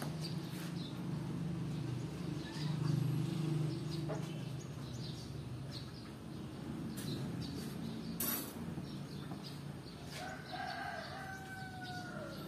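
A rooster crows once near the end, a single long call of about two seconds that holds steady and then falls. Before it, a low rumble, loudest about three seconds in.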